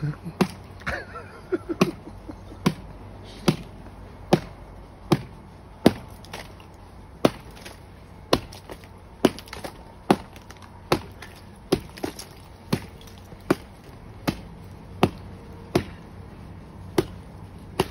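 Hammer blows on the thick ice frozen around a PVC roof drain pipe, a steady series of sharp knocks a little more than one a second, breaking up the ice that clogs the frozen drain.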